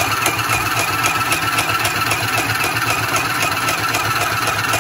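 KPCB mini portable sewing machine running on its low speed and stitching through paper. Its small motor gives a loud, steady buzz, with a rapid, even clatter of needle strokes.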